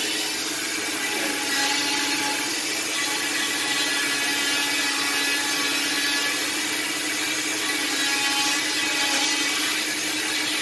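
Oscillating cast saw running at high speed while cutting through a green leg cast: a steady motor whine with a rasping hiss from the blade on the cast.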